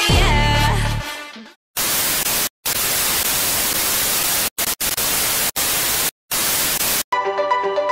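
Loud TV-style static hiss used as a glitch effect, switching on and off in several bursts with short dead-silent cuts between them. Before it a music phrase dies away over a low bass hit, and near the end a synth melody starts.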